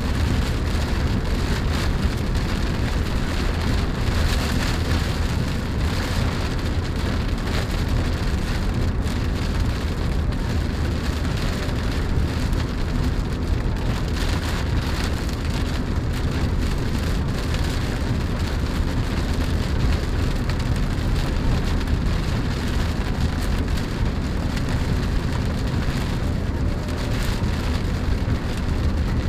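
Steady road noise inside a moving Chevrolet Spark's cabin: tyre roar and engine hum, with no change in level.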